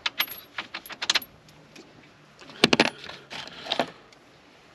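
Small metal hardware, such as bolts and sockets, clinking and clattering as it is handled: a quick run of clicks in the first second, and a louder cluster of clinks about two and a half seconds in.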